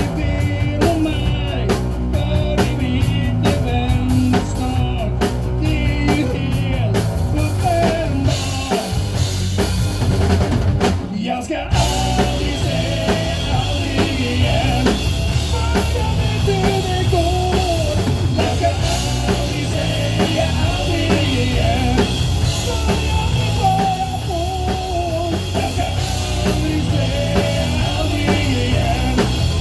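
A band playing a rock-pop song with drum kit, bass and a singing voice, with a brief break about eleven seconds in.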